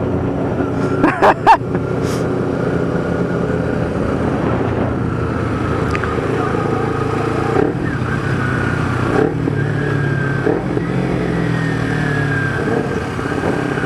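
Kawasaki Ninja 250R's parallel-twin engine running steadily while riding, heard through a microphone inside the rider's helmet, with slow rises and falls in engine pitch. A few brief, louder sounds come about a second in.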